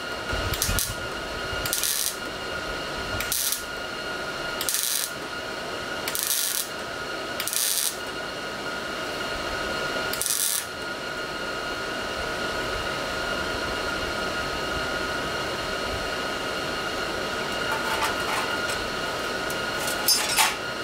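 Welding on sheet-metal repair panels: about eight short bursts of arc crackle, each under half a second, laid down as tacks over the first ten seconds. A steady high whine runs underneath throughout, and a few light clicks come near the end.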